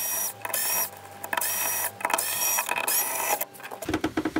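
Small electric screwdriver running in about five short whining bursts, each spinning up briefly as it backs out the screws holding the body shell on. A short rattle of handling noise follows near the end.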